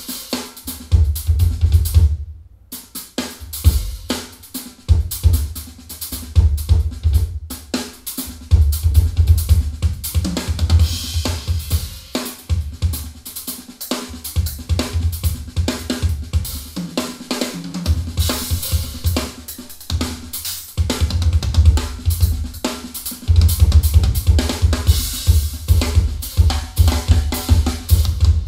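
A drum-kit recording (kick drum, snare, cymbals and hi-hat) playing through Edifier R1855DB bookshelf speakers with a subwoofer. The deep kick-drum bass is strong at first, thins out for a stretch in the middle while the subwoofer is switched off, and comes back near the end.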